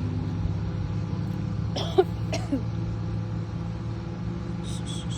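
A steady low mechanical hum runs throughout, under a short cough-like vocal sound from a small child about two seconds in. A high, steady insect chirping comes in near the end.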